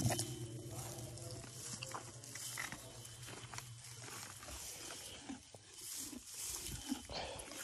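A pony close by at a metal fence, breathing and moving about faintly. A sharp knock comes at the very start, and a low steady drone runs for the first two to three seconds.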